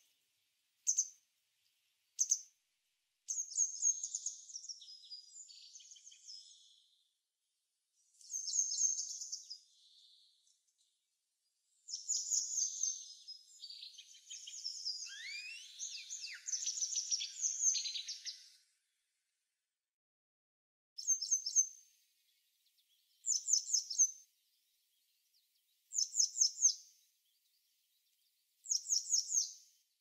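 Small songbirds calling in high, thin chirps: short calls at first, a longer twittering song in the middle, then brief quick phrases of a few notes repeated every two to three seconds.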